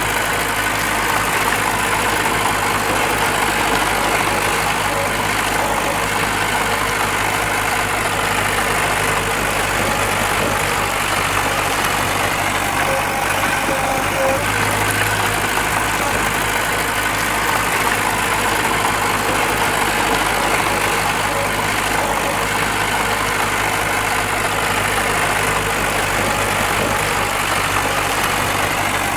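Heavy earthmoving machine's diesel engine running steadily at an even level, with no sudden knocks or changes.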